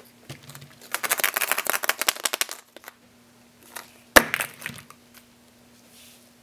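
Hollow plastic surprise eggs handled on a tabletop: a dense run of rapid plastic clicks and clatter for about a second and a half, then about four seconds in one sharp crack as an egg is snapped open, followed by a short rattle.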